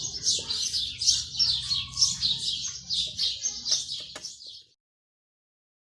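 A small bird chirping rapidly and repeatedly, about three short high chirps a second, with faint background noise. The sound cuts off abruptly near the end.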